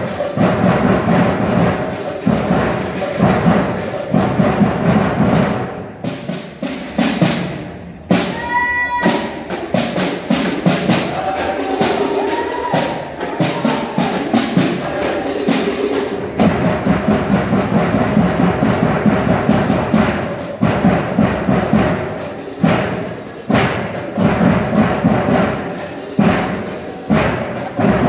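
Percussion band playing a fast, driving rhythm on drums and other struck instruments. About eight seconds in, the drumming thins out briefly under a short high pitched tone, then comes back in full.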